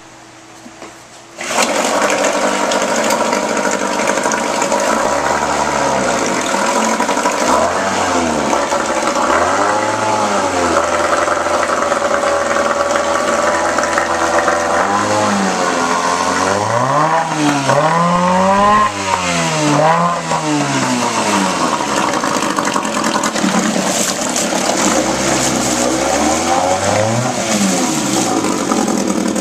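1994 Johnson 3 HP two-stroke outboard motor starting about a second and a half in, then running in a bucket of water, its pitch rising and falling several times as the throttle is opened and closed, with the propeller churning the water.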